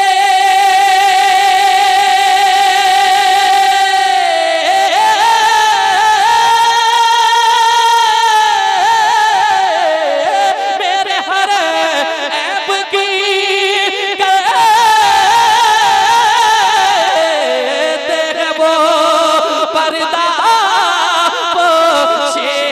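A man singing a naat solo into a microphone, holding long drawn-out notes that waver and glide between pitches.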